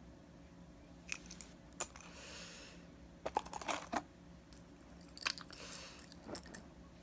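Faint, scattered clicks and clinks of small metal dog tags being handled, put down and picked up, with a brief soft rustle in between.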